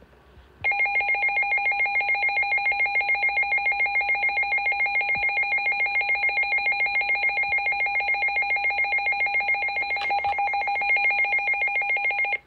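Midland WR-300 weather radio sounding its alert alarm: a loud, rapidly pulsing electronic tone that starts about half a second in and cuts off suddenly near the end, set off while its alert settings are being programmed.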